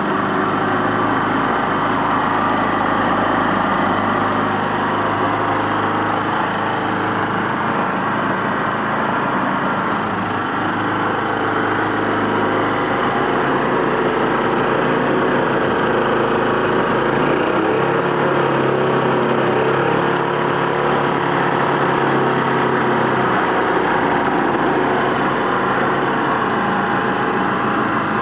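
Hayter 20 petrol lawn mower engine running steadily, with a slight shift in its low note about halfway through.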